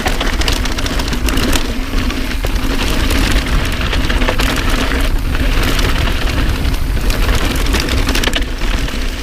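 Santa Cruz 5010 mountain bike descending a dirt trail at speed: wind rumbling on the camera microphone, with tyres crunching over the dirt and a constant clatter of small rattles and clicks from the bike over the bumps.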